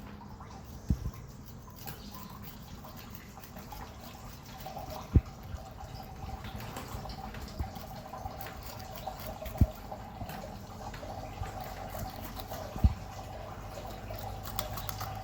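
Water running steadily from a tap or hose into a container as it fills, with four short dull knocks spaced a few seconds apart.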